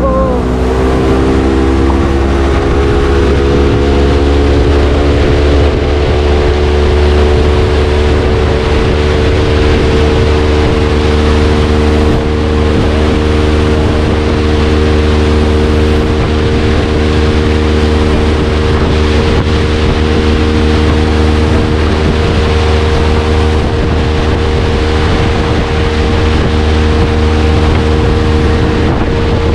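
Tour boat's engine running steadily under way: its pitch rises and levels off about a second in, then holds a constant drone.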